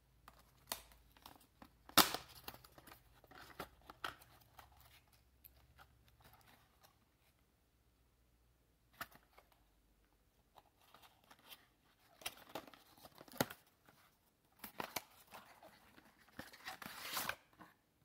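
Cardboard selfie-stick box being handled and opened by hand: scattered clicks, scrapes and rustles of the packaging, with a sharp click about two seconds in and longer stretches of rustling near the end as the folded stick is pulled out.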